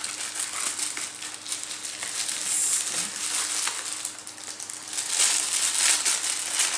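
Plastic packaging crinkling and crackling as it is handled and pulled off a camera lens, louder in the last couple of seconds.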